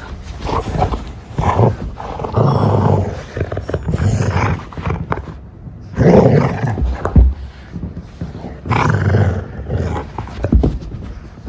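Treeing Walker Coonhound growling in play with a rope toy in its mouth, in repeated loud bursts of about a second.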